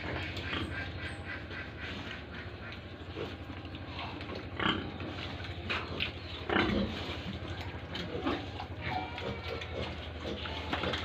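Pigs grunting, with several louder calls about four and a half, six and a half and eight seconds in.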